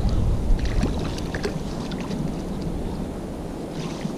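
Wind rumbling on the microphone over the flow of river water, the rumble easing off after the first second, with a few light ticks or small splashes in the first second and a half.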